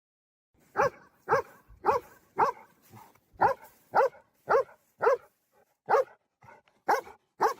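A dog barking in a steady, evenly spaced series, about two barks a second, starting just under a second in.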